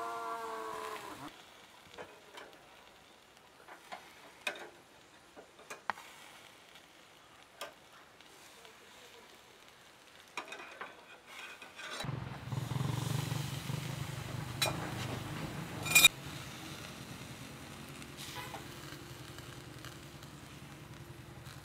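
Lamb burger patties sizzling on a wire grill over hot charcoal, with light clicks of patties and a metal spatula against the grill wires. The sizzle grows louder about twelve seconds in, and a sharp clank of the spatula on the grill comes a few seconds later.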